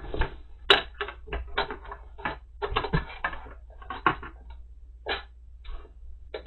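Irregular light clicks and taps, some in quick clusters, with no steady rhythm.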